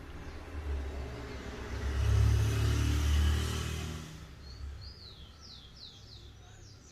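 A passing vehicle's low rumble, swelling to a peak about two to three seconds in and fading away by four seconds. It is followed by a run of quick, high, falling chirps.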